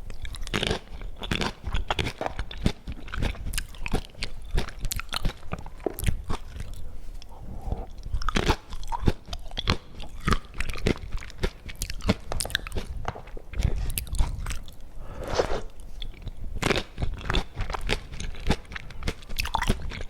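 Close-miked eating: a person biting and chewing crunchy food, with many irregular crunches throughout.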